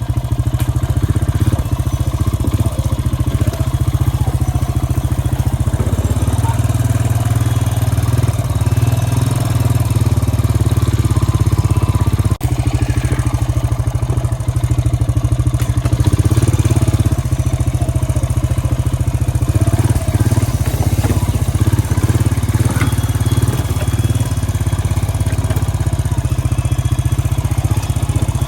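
2002 Honda Rancher ES ATV's single-cylinder four-stroke engine running steadily, with a brief drop in sound about twelve seconds in.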